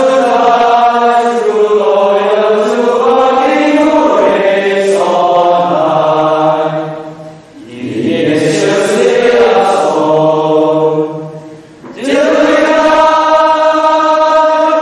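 A chorus of young men's voices sings slowly together in three long phrases with short breaks between them. The last note is held and cut off near the end.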